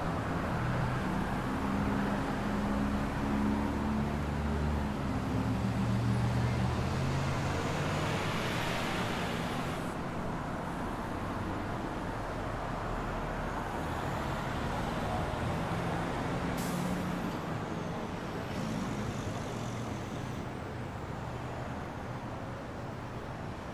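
City street traffic at night. A heavy vehicle's engine runs close by for the first several seconds, then passing cars make a steady tyre and road noise that swells briefly about eight seconds in. There is one short, sharp noise near the end.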